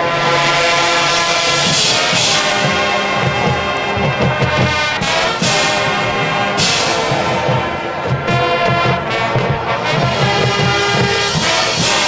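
Marching band playing at full volume, brass chords over drum line and pit percussion, with several crashes through the phrase. The sound swells up in the first second.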